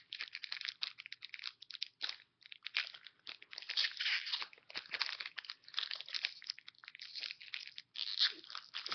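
Pokémon booster pack's foil wrapper crinkling and tearing as it is opened by hand, a dense run of irregular crackles with short pauses.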